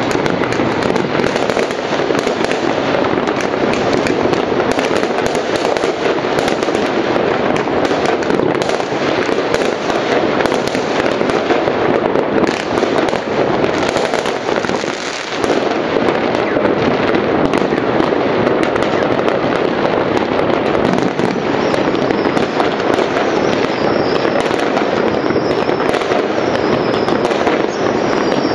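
New Year's fireworks and firecrackers going off all around in a dense, unbroken barrage of crackles, pops and bangs that merge into a steady din, with a faint wavering high whistle in the second half.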